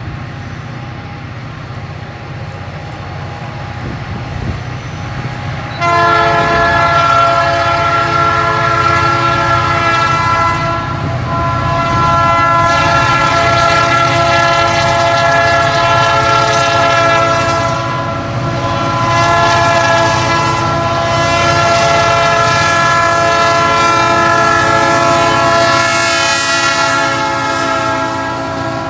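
Diesel freight locomotives climbing a grade under load, with a low engine rumble. About six seconds in, the locomotive air horn starts, several notes sounding together. It is held loud and almost unbroken for about twenty seconds as the train approaches a grade crossing.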